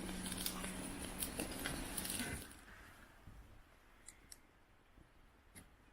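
Small wood campfire crackling with sharp snaps as branches are fed in. The sound drops away suddenly about two and a half seconds in, leaving only a few faint, scattered crackles.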